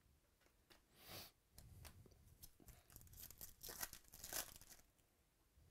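Foil wrapper of a Topps Chrome baseball card pack being torn open and crinkled by hand, faint, starting about a second in and stopping shortly before the end.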